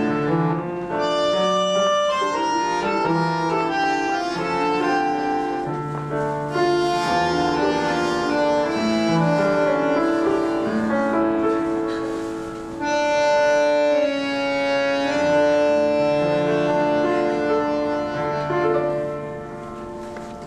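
Two bandoneons and a piano playing a tango vals in waltz time, with held reedy chords over piano, growing quieter over the last couple of seconds as the piece closes.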